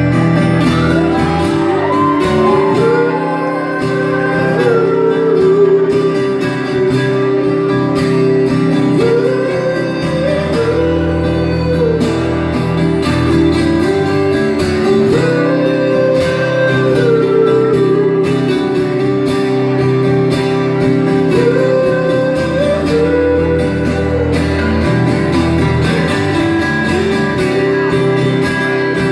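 Live band music: an instrumental passage of guitars and sustained chords, with a melodic lead line that bends and repeats the same phrase every few seconds.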